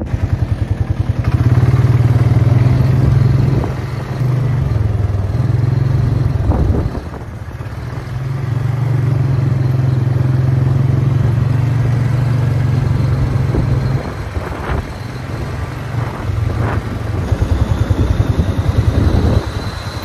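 Engine of a small off-road vehicle running steadily as it is ridden along a road. Its note drops back and picks up again a few times.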